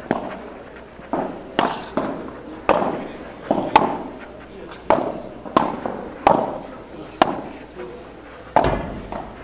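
Padel rally: the ball cracks off solid padel rackets and bounces on the court, a sharp hit about every half second to second, each with a short ringing echo.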